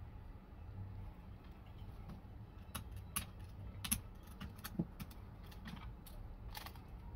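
Small sharp clicks and taps of a metal spincast fishing reel being handled and fitted onto a slingshot rifle's mounting rail, scattered irregularly through the second half.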